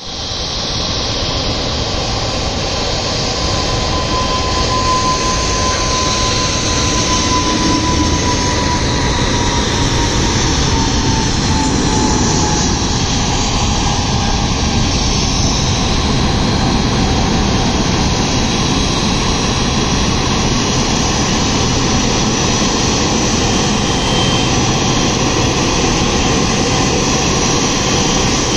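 Jet engines of a twin-engine Qatar Airways cargo aircraft landing and taxiing: a loud, steady rushing noise with a thin whine that slowly falls in pitch in the first half.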